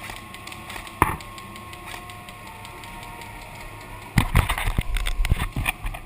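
A single sharp click about a second in, then near the end a rapid run of sharp knocks and clicks lasting under two seconds.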